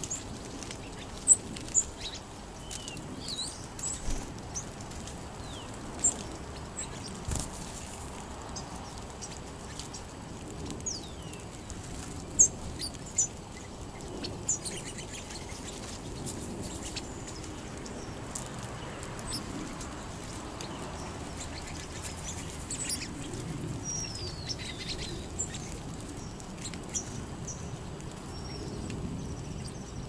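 Sparrows and California quail feeding on a seed pile: scattered short, high chip notes and chirps, a few of them loud and sharp, and a longer falling whistle about 24 seconds in, over a low steady rumble.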